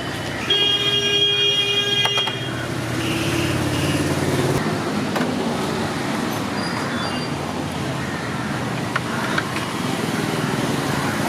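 Busy street traffic with engines running. Near the start a vehicle horn sounds steadily for about two seconds.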